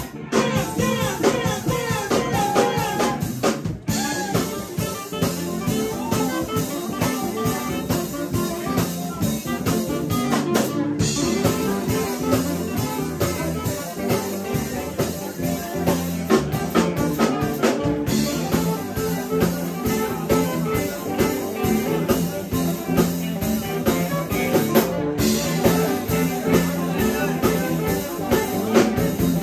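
Live band music: electric bass, electric guitar and drum kit playing a steady groove with a strong bass line.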